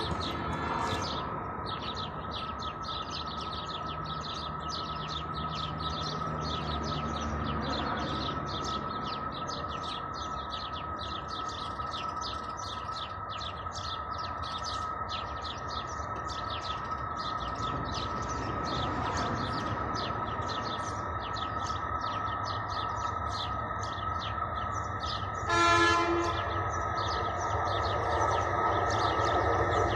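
TCDD E43000-class electric locomotive approaching on the track: its horn sounds, fading out about a second in and blowing again for about a second some four seconds before the end, while the rumble of the oncoming train grows louder toward the end. Birds chirp steadily throughout.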